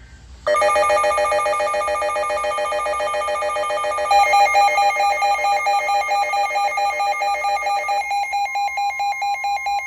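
Weather alert radios sounding their alarms for a severe thunderstorm warning: a rapid pulsing electronic beep starts about half a second in, and a second pulsing alarm joins about four seconds in. The first stops around eight seconds in, leaving the second beeping over a steady tone.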